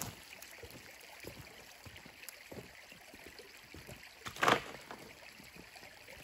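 Footsteps crunching irregularly over a gravelly creek bed covered in dry leaves, with one much louder crunch or knock about four and a half seconds in.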